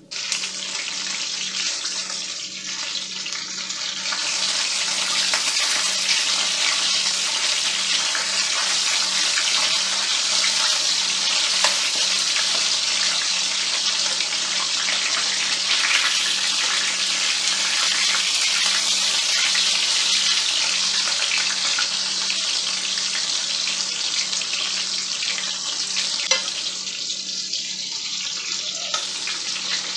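Floured pork chops frying in hot oil in a stainless steel skillet: a loud, steady sizzle that starts suddenly as the chops go into the pan, with a few sharp clicks.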